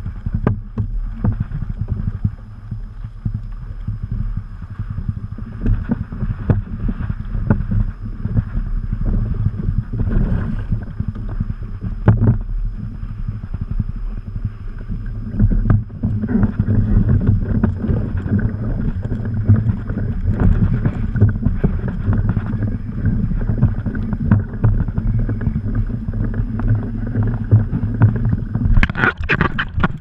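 Strong wind buffeting the microphone over water slapping against a kayak's hull, with frequent small knocks and splashes.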